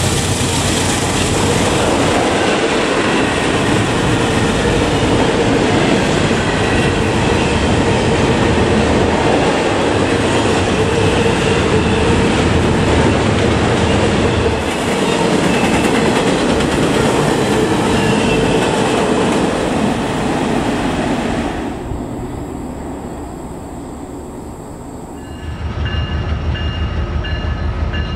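Double-stack intermodal freight train rolling past: a steady, loud rumble and clatter of well-car wheels on the rails, with a held tone running through it. About three quarters of the way in it falls away to a quieter rumble. Near the end a different steady sound with several held high tones comes in.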